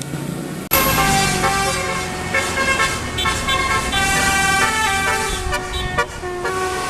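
A bus's 'basuri' telolet melody horn playing a tune of stepped, flute-like horn notes. It starts abruptly about a second in and stops shortly before the end.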